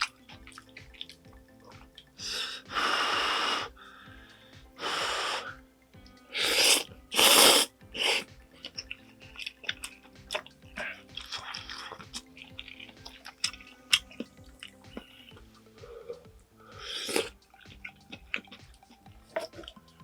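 Close-miked eating of spicy squid jjamppong ramen: a few loud slurps of noodles and soup, the longest about two seconds in and a pair around seven seconds, between wet chewing with small clicks and smacks.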